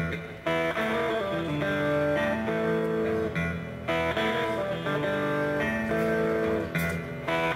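A live band playing, led by electric guitar over held keyboard chords.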